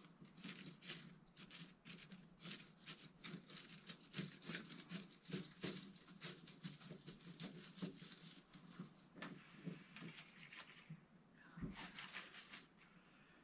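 Faint rustling and crinkling of flower stems and leaves being handled and pushed into a small vase, a quick run of small ticks and crackles, with one soft thump near the end.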